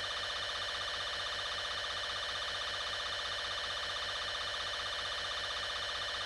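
Steady electronic alarm drone: several held tones sounding together at an even level with a fast, even flutter and no breaks, the background bed of a mock emergency alert broadcast.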